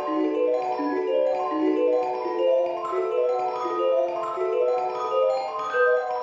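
Background music: a quick, even run of bell-like mallet-percussion notes.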